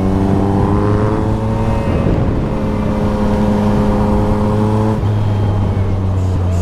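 Yamaha MT-09's inline-three engine running under way at a steady, moderate pace. Its note climbs slightly, then changes about two seconds in and again about five seconds in.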